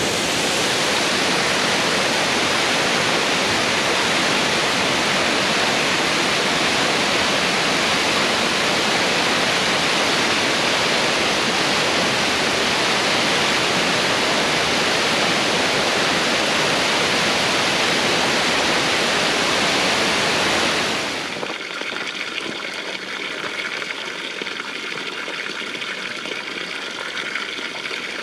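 Waterfall crashing steadily, a dense unbroken rush of falling water. About 21 seconds in it gives way abruptly to a quieter, thinner sound of running water.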